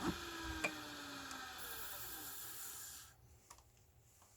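A click, then the scissor and knife grinding machine's motor whirring faintly for about three seconds with a slowly falling pitch, stopping suddenly.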